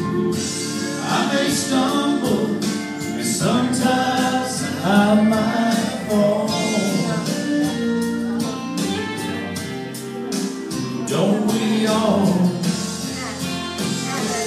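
Live country gospel song from a small band with keyboard and acoustic guitar, with singing over the steady backing.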